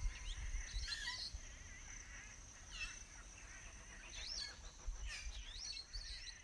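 Faint outdoor ambience: birds chirping and whistling every second or so, over a steady high insect drone.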